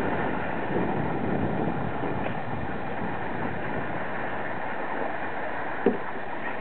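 Wind rushing over the camera's microphone, a steady noise, with one short knock near the end.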